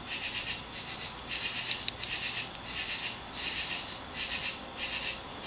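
Cast-iron HRS 56-inch industrial ceiling fan running at medium-low speed, its curved aluminum blades making a rhythmic whoosh about one and a half times a second over a faint steady motor hum. A brief tick about two seconds in.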